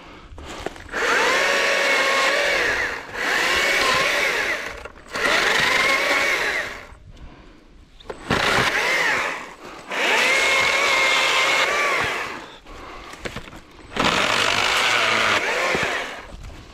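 Stihl MSA 120 C battery chainsaw's electric motor cutting a rotten fallen branch in about six bursts of a couple of seconds each. Its whine sags in pitch as the chain bites into the wood, then recovers.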